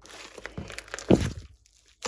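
Slime being worked by hand, crackling and crinkling, with one louder, deeper pop just after a second in; it stops for a moment near the end.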